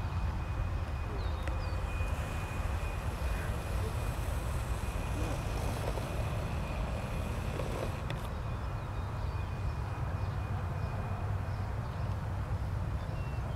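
Steady low rumble of a jet airliner's engines climbing away out of sight into fog, with a fainter hiss above it that eases off about two-thirds of the way through.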